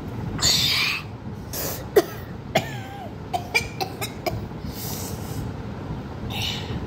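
A boy coughing and gasping from the burn of very spicy noodles: a hard cough near the start, then a string of short strained squeaks and gasps, and another cough near the end. A sharp click comes about two seconds in.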